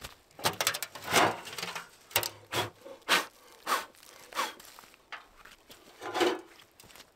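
Boots stepping on wet, muddy ground strewn with leaves and ice, an irregular series of footsteps roughly every half second, while a heavy steel wood-stove body is lifted and carried.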